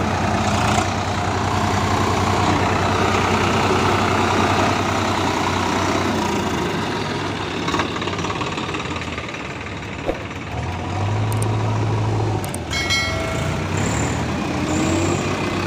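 Diesel engines of a Swaraj 744 tractor and a JCB backhoe loader running steadily, with the engine rumble growing louder about eleven seconds in.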